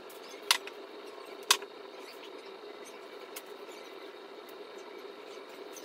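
Makeup bottles and cases being handled and wiped clean: two sharp clicks about half a second and a second and a half in as containers are knocked or set down, then a few fainter ticks, over a steady low hum.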